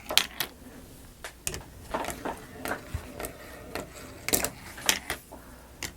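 Glass marbles rolling and clattering down a wooden marble-run track, a run of irregular sharp clicks and taps.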